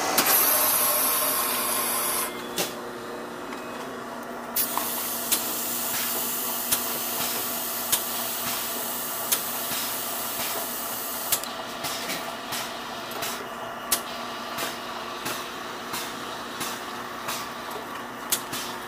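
Frozen drink (slush) machine running with a steady mechanical hum and a light click about every second or so, as red slush is drawn from its tap into a cup. A loud hiss fills the first two seconds.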